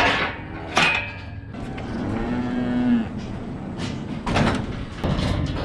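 A dairy heifer mooing once, a single call of about a second and a half in the middle, with a few sharp knocks before and after it.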